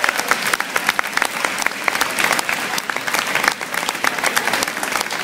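Audience applauding, a dense, steady run of hand claps, greeting the announcement of the winners.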